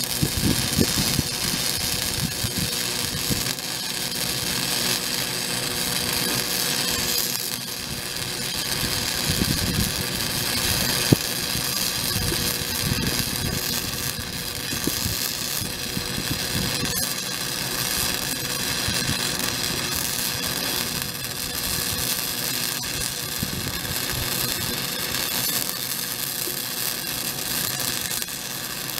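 Electric arc welding a bead on thick steel plate: the arc crackles and sizzles steadily without a break.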